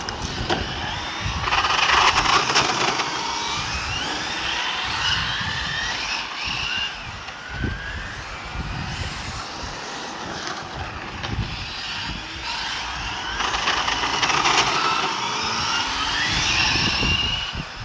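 Brushless electric RC cars running hard on asphalt, their motors whining up and down in pitch as they accelerate and brake. The sound swells twice, about two seconds in and again around fourteen seconds, as a car passes close.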